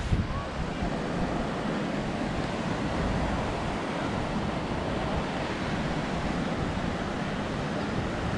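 Steady wash of ocean surf on a beach, with wind noise on the microphone.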